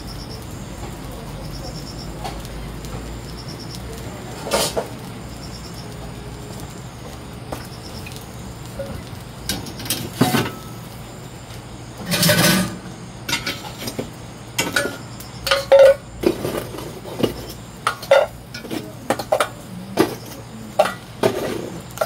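Lumps of glowing charcoal knocking and clinking against each other and a pail as they are moved. After a quieter stretch with a few single knocks, a quick run of short, sharp clinks fills the second half.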